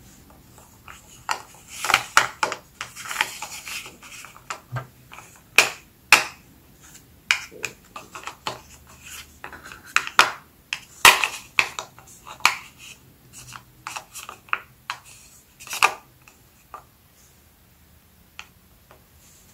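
Chocolate-coated crackers being set down and slid into place on a plate by hand: scattered light clicks and taps of the crackers against each other and the plate, with some soft rubbing. The tapping stops in the last couple of seconds.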